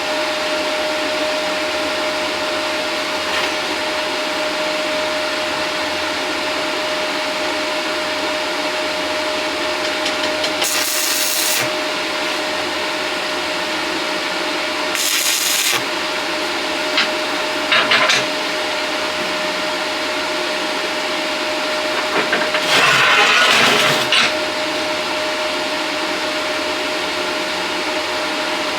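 220-volt stick welder running with a steady hum and fan noise, while four short crackling arc bursts are struck as tack welds with 7014 rod: about ten, fifteen and eighteen seconds in, and a longer one of about a second and a half near twenty-three seconds.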